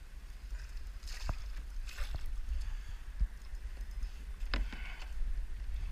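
Water splashing a few times, about a second in, at two seconds and again near the end, as a small pike is brought in alongside a kayak. A steady low rumble runs underneath.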